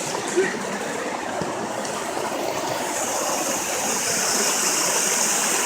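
Steady rush of flowing water, like a stream or small waterfall.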